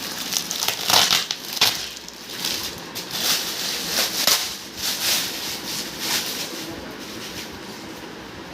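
TV packaging being handled and opened: a run of irregular rustling, scraping strokes of cardboard and plastic, which die down about six or seven seconds in.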